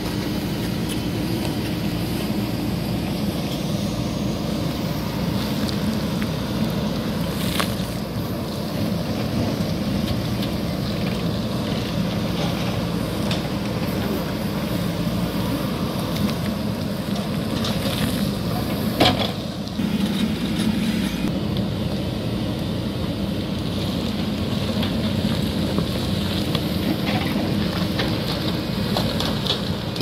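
JCB 3DX backhoe loader's diesel engine running steadily under load while the backhoe bucket digs into loose earth and stones, with a few sharp knocks, the loudest about two-thirds of the way through.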